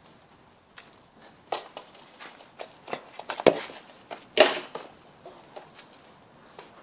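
Football being kicked about on a garden lawn: scattered thuds and scuffs of ball and feet, with a sharp thud about three and a half seconds in and a louder knock just under a second later.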